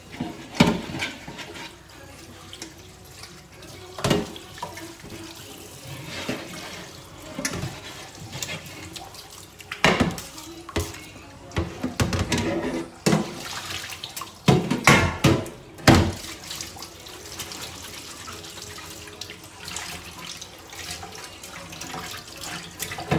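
Tap water running into a stainless steel sink while a baking tray is scrubbed with a cloth under the stream, with splashing. Several sudden louder moments break in, the strongest around ten and fifteen seconds in, as the tray and dishes are moved about in the sink.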